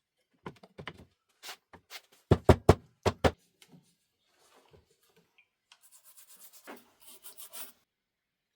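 Workshop handling sounds of wood and tools: scattered knocks, with a burst of five loud sharp knocks about two and a half seconds in, then a couple of seconds of quick scraping and rubbing near the end.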